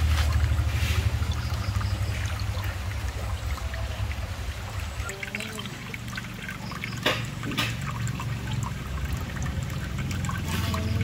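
Water trickling and pouring from a pipe outlet into a small koi pond, over a steady low rumble. Two sharp clicks come about seven seconds in.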